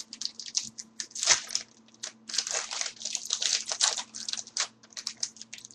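Foil wrapper of a hockey trading-card pack being torn open and crinkled by hand: a run of irregular crackles and rustles.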